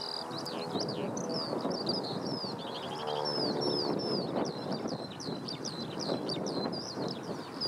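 A dense chorus of many small birds chirping and twittering without pause. Under it runs the distant drone of a biplane's propeller engine, which swells about three seconds in.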